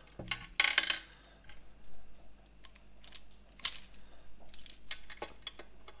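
Small clicks and taps of zinc-alloy model parts being handled: the lower arm of a T-800 endoskeleton model as its last metal rod is fitted into its tube. The loudest taps come about half a second in and again near 3.5 s.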